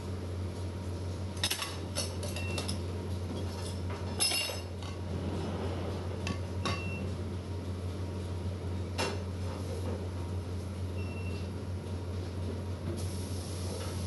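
Metal pots and utensils clinking and knocking now and then, several strikes ringing briefly, over a steady low hum.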